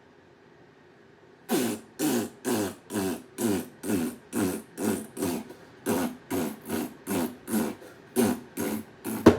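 A man beatboxing: a steady beat of mouth-made percussive sounds, about two a second, each with a falling low tone, starting about a second and a half in.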